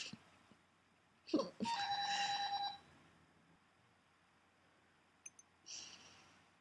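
A sharp hiccup about a second in, followed at once by a short, high, trilling ringing tone lasting about a second. Near the end comes a faint second hiccup.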